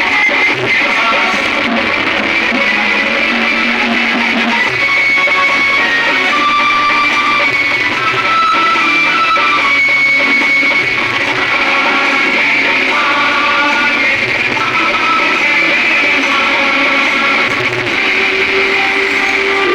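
Music led by a guitar, with short notes following one another at a steady loudness.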